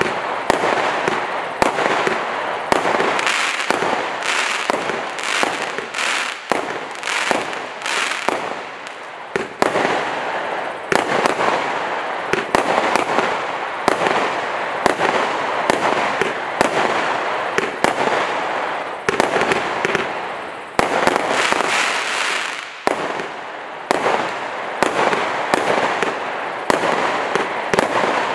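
Monkey Madness 216-shot compound firework cake firing: shots in quick, irregular succession, several a second at times, over a dense crackle from its crackling-star effects.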